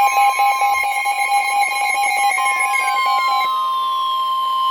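Layered electronic emergency alert tones: a steady tone near 1 kHz holds throughout, with a pulsing lower tone and other steady tones over it that cut off about three and a half seconds in. In the second half several tones glide steadily downward in pitch.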